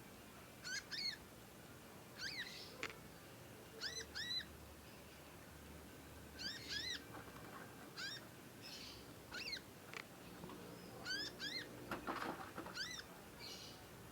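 Young conin songbird giving short, high chattering calls, mostly in quick pairs of falling notes, repeated every second or two. This is a fledgling still learning its song.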